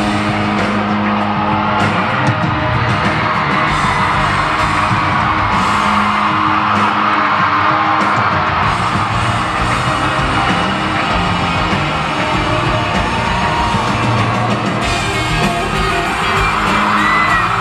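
Live country-rock band playing loud through a concert PA, electric guitars and drums, recorded from within the audience. Fans yell and whoop over the music.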